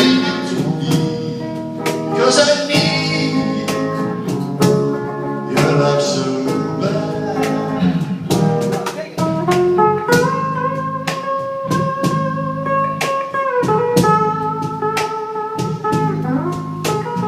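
Live band playing a slow blues instrumental passage: a lead guitar plays long notes that bend and slide in pitch, over a steady drum beat and a low bass line.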